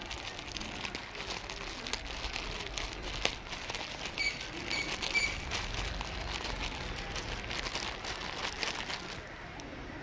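Irregular dry crinkling and crackling, many small ticks close together, with a few short high chirps about four to five seconds in. The crackle dies down near the end.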